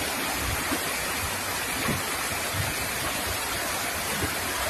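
Steady rushing of water, an even roar with no breaks.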